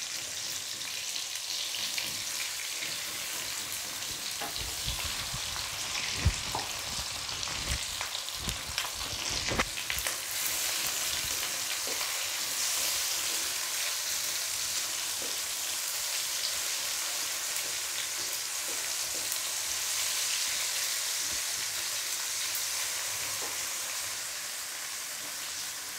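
Sliced shallots, tomato and red chillies sizzling in hot oil in a wok over high heat. A spatula scrapes and knocks in the pan now and then, mostly between about four and ten seconds in, and the sizzle grows louder from about ten seconds in.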